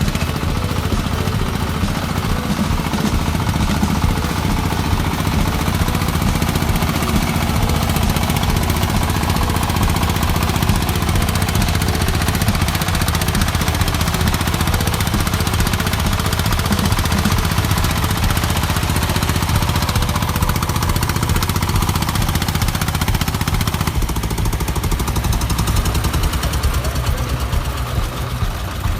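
Farm vehicle's engine running steadily and hard with a fast, even chugging beat.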